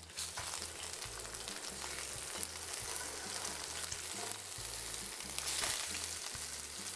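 Sesame-crusted tuna steaks sizzling steadily in hot oil in a stainless steel skillet, with many small crackling pops, searing on their second side just after being flipped.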